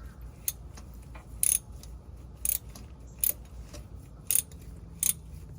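Sharp metallic clicks from hand tools being handled and fitted together, roughly one a second.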